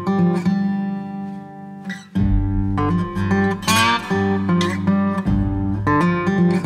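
Background music led by a strummed acoustic guitar. It dips briefly about two seconds in, then comes back fuller with a low bass line.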